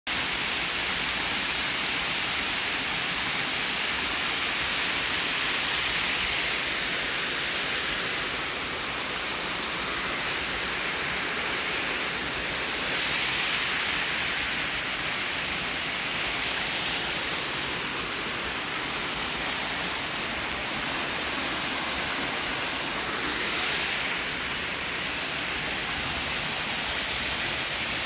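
Small forest waterfall pouring down a rock face into a shallow pool: a steady rush of falling water.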